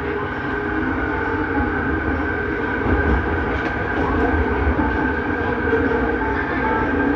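Bombardier Innovia Metro 300 metro train running between stations, heard from inside the car: a steady rumble with a constant motor whine over it.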